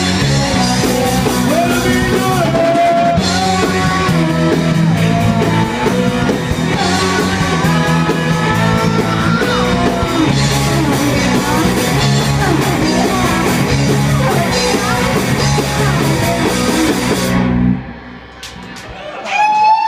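Punk rock band playing live: electric guitar, bass guitar and drum kit with sung vocals, loud and steady, then stopping abruptly near the end.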